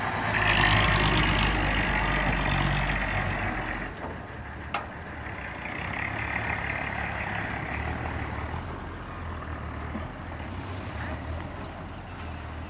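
Heavy tipper trucks' diesel engines running while their hydraulic hoists raise the dump bodies. The sound is loudest at first, drops about four seconds in, and a sharp click comes shortly after.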